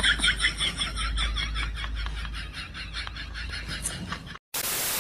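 A high-pitched giggling laugh sound effect: quick, evenly repeated laugh pulses that fade out over about four seconds. It is followed near the end by a short burst of static hiss.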